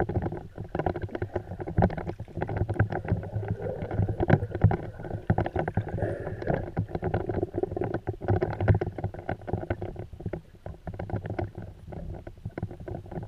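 Muffled underwater sound picked up by a GoPro in its waterproof housing: a low rumble of moving water with dense, irregular clicking and crackling.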